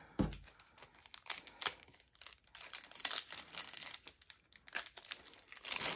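Foil Pokémon booster pack wrapper crinkling and being torn open by hand: a run of irregular crackles, a little louder near the end.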